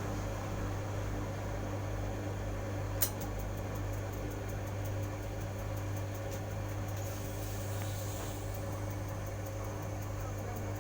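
Steady low electrical hum of a running machine, with a single sharp click about three seconds in.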